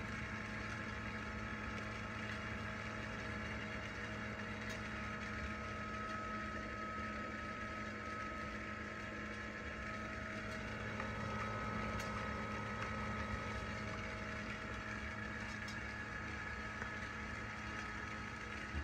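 Gemmy Tornado Globe's small motor running steadily, driving the whirling bats inside the globe: a constant hum, with a faint high whine joining about five seconds in.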